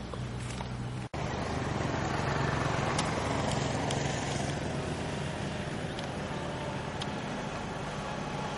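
A vehicle engine running steadily with a low hum under general outdoor noise. The sound cuts out for an instant about a second in.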